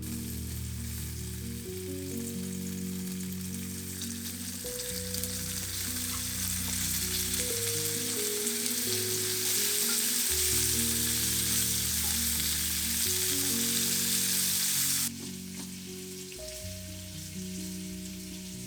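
Food sizzling in oil in a frying pan, a dense steady hiss that grows slightly louder and then cuts off abruptly about three-quarters of the way through. Soft background music plays underneath.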